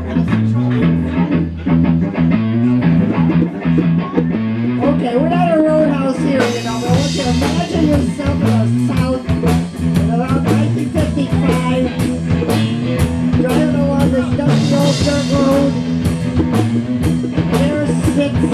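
Live band music: electric guitars over a bass line, with the drums' steady cymbal beat coming in about six and a half seconds in.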